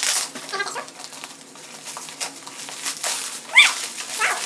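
Plastic bubble wrap crinkling and rustling as hands tear it off a parcel, with packing tape being peeled from a cardboard box. A few short high-pitched squeaks cut through, the loudest rising sharply about three and a half seconds in.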